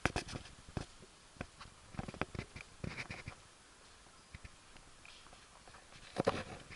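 Scattered light clicks and knocks of a handheld Sony action camera being moved and handled, irregularly spaced over faint background hiss.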